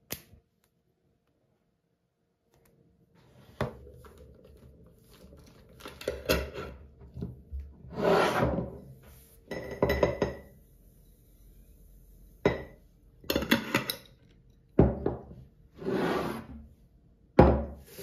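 Dried seeds poured into a glass jar: several short rattling, hissing pours with clinks and knocks of the glass jars being handled, after a quiet first few seconds. A louder thunk comes near the end.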